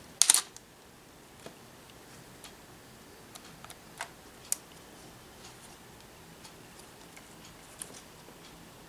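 A short, sharp clatter of clicks about a quarter second in, then a few faint, scattered single clicks and ticks over quiet room noise.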